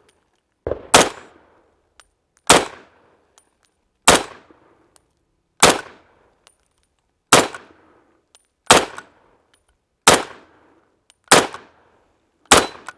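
M1 carbine firing nine semi-automatic .30 Carbine shots, one about every one and a half seconds, each sharp crack followed by a short echo.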